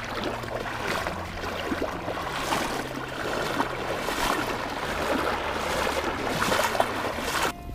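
Water splashing and churning around a person's legs as he wades across a river, with many small irregular splashes; it cuts off abruptly near the end.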